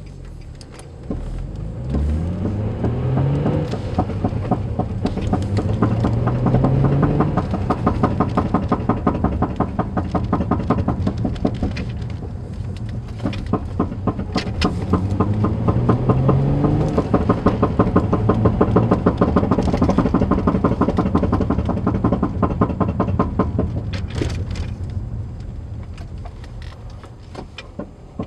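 Infiniti G35 being driven: its V6 engine climbs in pitch through several gear changes. A fast, continuous rattle from the front driver's side comes in over the engine while the car pulls.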